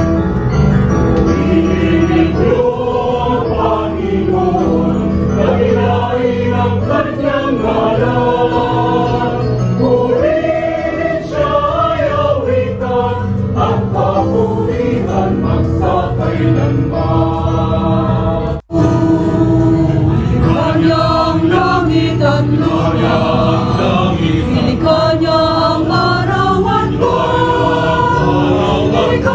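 Mixed choir of women's and men's voices singing a hymn together. The sound drops out for an instant about two-thirds of the way through.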